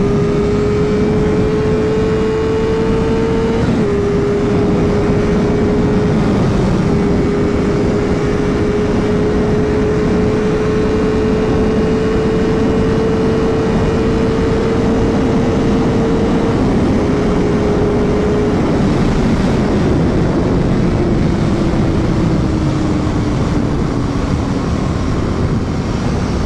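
Honda CBR600's inline-four engine running under way, heard from on the bike over heavy wind rush. Its pitch climbs slowly, drops in a quick step about four seconds in as it shifts up, then holds; near the end it steps down again and falls away as the bike slows.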